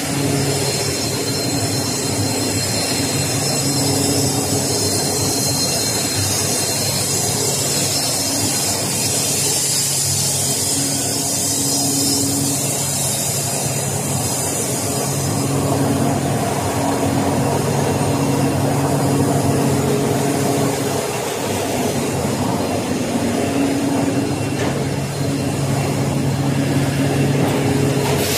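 Instant noodle production line machinery running: a steady mechanical hum of motors and conveyors, with low tones that come and go. A high hiss is strongest over roughly the first half.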